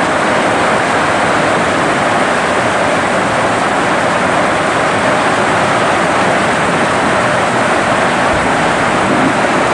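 Heavy hail falling on roofs and ground, a loud, dense, unbroken rush with no letup.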